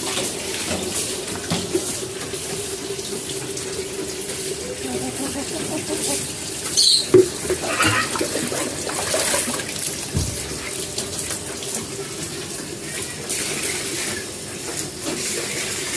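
Water running steadily, as when a tap or hose runs for washing cages, with a brief high squeak about seven seconds in.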